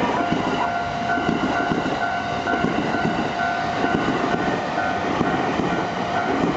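Japanese railway level-crossing alarm ringing with a fast, regularly repeating electronic tone, over the rumble of a Yokosuka Line train running through the station.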